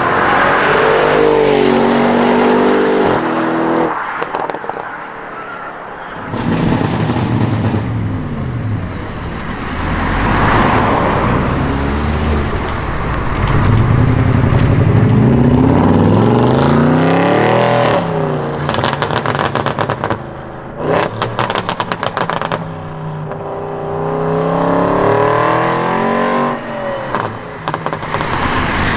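Audi RS6 engines with aftermarket exhausts revving hard and accelerating away several times, the note climbing and dropping. About two-thirds of the way through, a quick run of exhaust crackles and pops, with a few more near the end.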